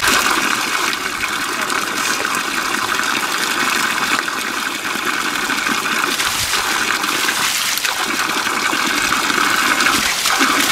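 A steady stream of water pouring from a spout and splashing onto rocks and over hands as potatoes are rubbed clean under it.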